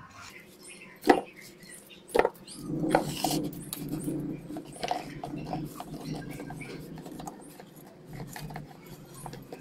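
Raw mango pieces, coated in salt and turmeric, tipped and pushed by hand from a steel plate into a plastic tub. There are two sharp knocks about a second and two seconds in, then a steady clatter of pieces landing and rubbing against the plastic.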